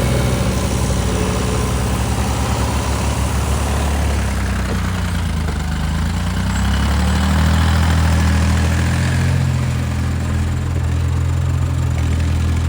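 Diesel engine of a JCB excavator running, its engine speed sagging about four seconds in and picking up again around seven seconds in.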